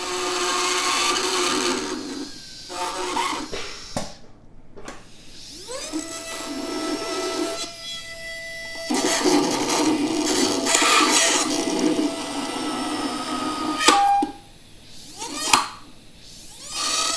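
Slow-speed straight dental handpiece spinning an acrylic bur and grinding a hole through a clear plastic impression tray. It grinds in several bursts with short pauses, and the motor's whine rises as it spins up about six seconds in; a few sharp clicks fall between the bursts.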